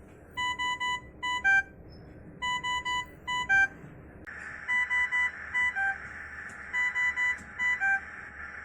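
Ventilator alarm beeping in repeated bursts about every two seconds: a quick run of three beeps, a pause, another beep, then a lower-pitched beep to close each burst. From about halfway through, a steady hiss sounds under the beeps.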